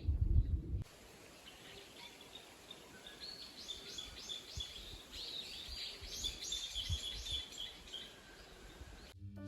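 Songbird singing: two runs of quick, repeated high chirping notes, faint against a quiet background. A low rumbling noise fills the first second, and music cuts in at the very end.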